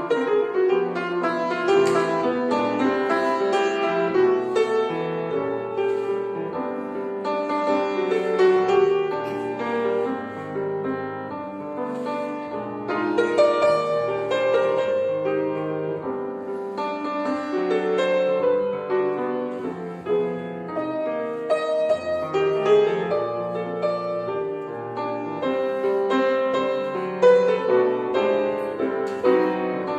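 Piano playing a jazz ballad, chords under a melody line, with no other instruments.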